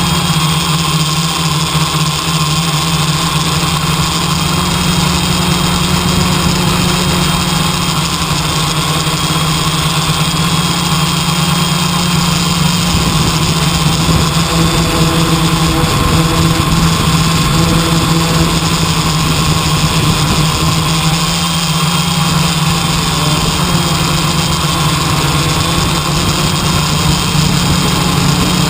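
An engine running steadily at a constant speed, a continuous low hum with steady higher tones over it and no change in pitch.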